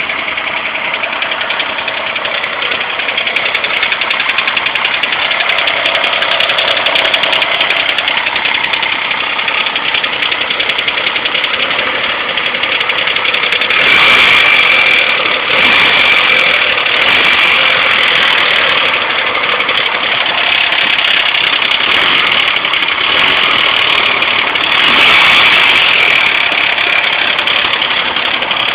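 A 2001 GT's engine running on a cold start with a misfire. The sound is steady throughout and gets louder for a few seconds about halfway through and again near the end.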